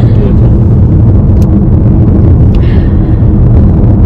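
Steady low rumble of road and engine noise inside a moving car's cabin, with a single click about a second and a half in.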